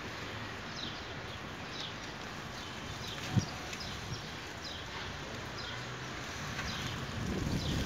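Leaves of young potted poplar saplings rustling steadily in the wind. A bird chirps repeatedly in short falling notes, and a single low thump comes about three and a half seconds in.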